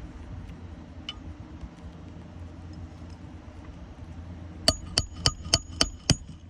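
Six quick hammer blows, about four a second with a metallic ring, driving a roofing nail through a new three-tab asphalt shingle.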